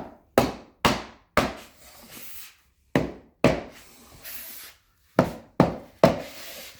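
Hammer knocks tapping a hickory waterproof hardwood floor plank tight to close the gap at its click-lock joint: nine sharp strikes in three bursts, four, then two, then three.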